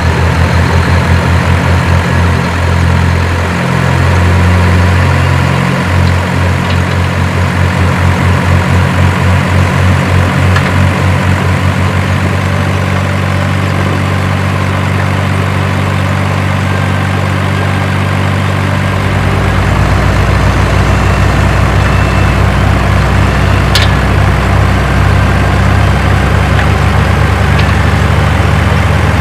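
Heavy diesel engine idling with a steady low rumble, as of a truck or excavator; a deeper layer joins about two-thirds of the way through, and a single sharp click sounds near the end.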